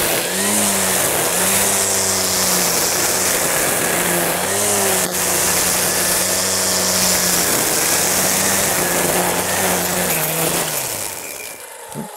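Battery-powered brush cutter with a top-mounted electric motor running at its low setting, cutting through thick weeds. Its steady hum dips briefly now and then as the blade takes load. About eleven seconds in the motor winds down and stops: the overload sensor cuts it out under heavy load.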